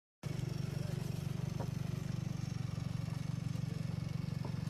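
An engine running steadily at idle with a fast, even pulse, and a few light clicks and clatter over it; it starts abruptly just after the beginning.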